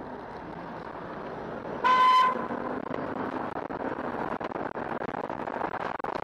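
A single short car horn toot of about half a second, about two seconds in, over steady road and wind noise from riding in traffic.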